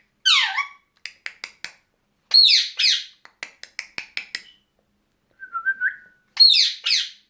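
Pet parrots calling: several loud, harsh cries that sweep downward in pitch, a string of sharp clicks in between, and a short whistled warble a little past halfway.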